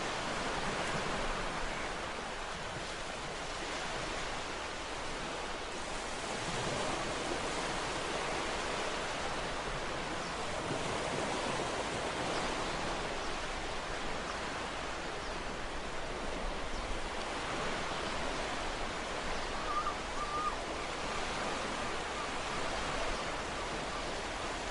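Ocean surf washing in, a steady hiss that swells and eases gently every few seconds.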